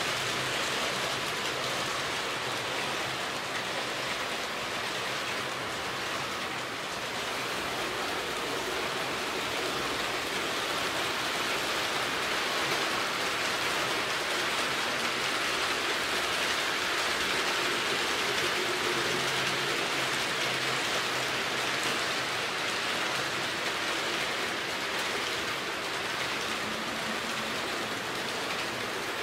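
Frateschi HO-scale model freight trains rolling along the track: a steady hiss and rattle of small metal wheels on the rails, with a faint low hum that comes and goes.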